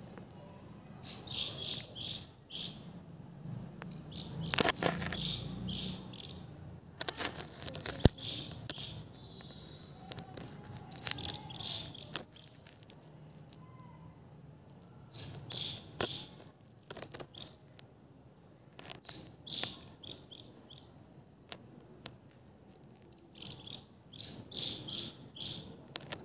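High chirping in short bursts of several quick pulses each, repeating every few seconds. A sharp click about eight seconds in is the loudest moment.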